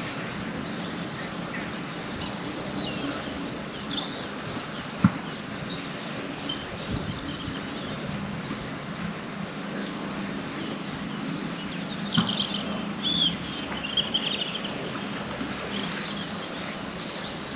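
Outdoor ambience: small birds chirping and singing throughout over a steady background hiss, with a few sharp knocks, the loudest about five seconds in.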